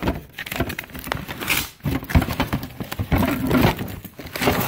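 Papers, envelopes and cloth rustling and crinkling as gloved hands rummage through a plastic storage tote, with irregular small knocks and scrapes of things being shifted.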